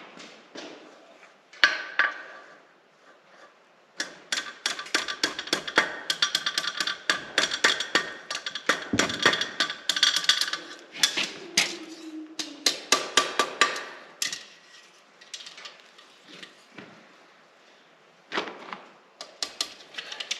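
A 2 lb rounding hammer forging a 1/4-inch steel rod on an anvil: a fast run of ringing blows for about ten seconds, starting about four seconds in, then a few scattered strikes near the end.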